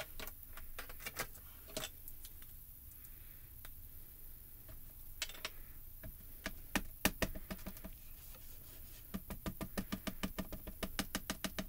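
Light tapping of a mini ink pad against a clear rubber stamp while it is inked. There are a few scattered taps at first, then quick, rapid dabbing over the last few seconds.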